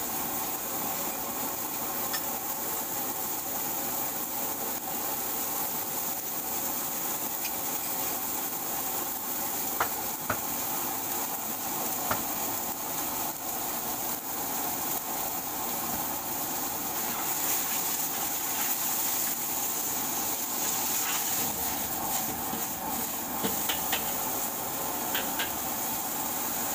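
Fried rice being stir-fried in a wok over a gas burner: a steady rush of burner and sizzle, with a few sharp clinks of the metal ladle and spatula against the wok, mostly around the middle and near the end.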